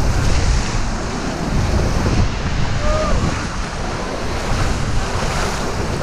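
Whitewater rapids rushing and churning around an inflatable raft, loud and steady, with wind buffeting the microphone.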